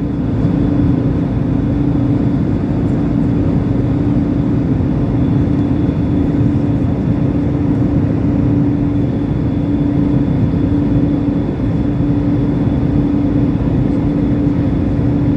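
Steady cabin noise of an Airbus A320-family jet airliner in the climb: the even roar of its engines and the air rushing past the fuselage, with a constant hum running through it.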